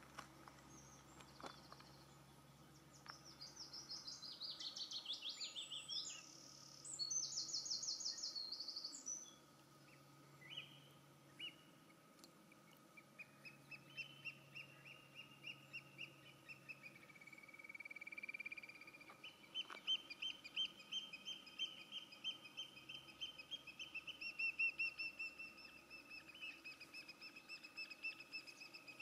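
Birds calling: fast, high trills in the first third, then long runs of quick repeated notes.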